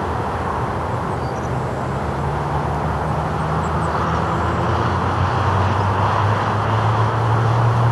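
Steady low engine rumble with a humming drone, growing a little louder toward the end.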